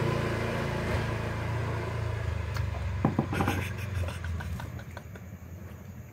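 A motor vehicle engine idling with a steady low hum, which fades out about four and a half seconds in. A few light clicks come around three seconds in.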